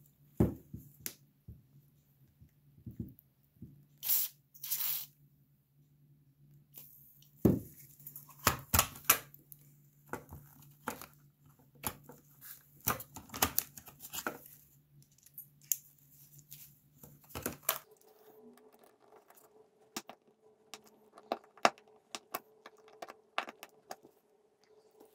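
Irregular scraping, clicks and taps of a metal pick and small hand tools working on a buried, badly corroded 1930 Coca-Cola pencil sharpener, with crinkling of gloved hands and newspaper. Underneath is a low steady hum that shifts higher about two thirds of the way through.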